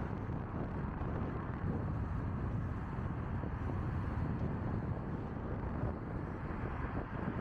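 Steady low rumble of a car driving at speed, with wind buffeting the microphone.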